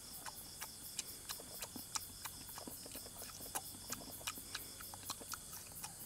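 A person chewing a bamboo shoot: faint, irregular crunches and mouth clicks, several a second. Behind it runs a steady, high, rhythmic chirping of insects.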